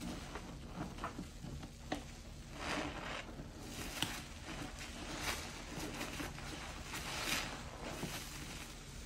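Soapy sponge being squeezed and kneaded by hand in a basin of sudsy water: wet squelching and sloshing in uneven swells, with a sharp click about four seconds in.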